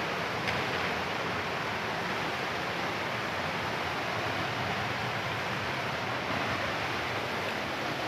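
Steady rushing of a waterfall in heavy flow after rain upstream.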